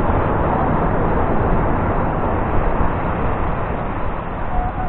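Steady rushing noise of wind on the microphone and waves breaking on the beach.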